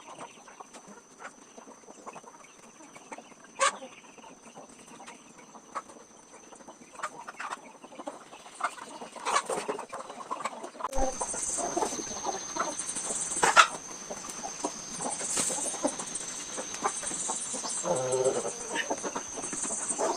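Chickens clucking and calling, short scattered calls from several birds, getting louder and busier about halfway through.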